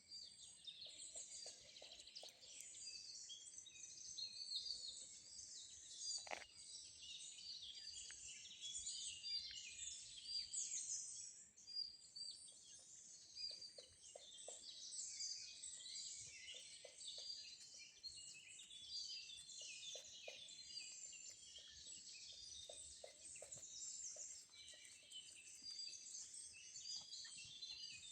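Forest bird chorus: many small songbirds chirping and trilling at once in a dense, continuous, high-pitched chatter, with a few lower calls now and then.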